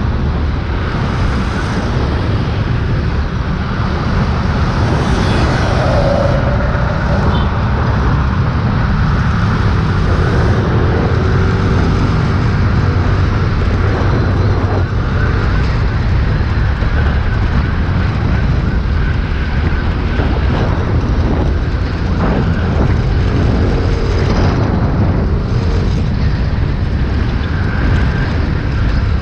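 Motor scooter riding along a multi-lane road: a steady rush of engine, tyre and wind noise, with other traffic on the road.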